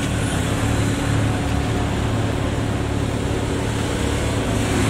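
Road traffic: cars passing close by, over a steady low engine hum.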